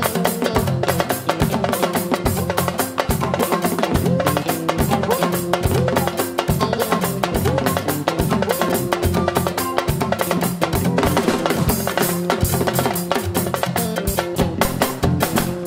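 Live band playing fast, dense sabar drumming together with a drum kit and electric bass.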